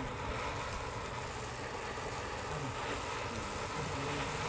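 A ground fountain firework spraying sparks: a steady hiss with no bangs.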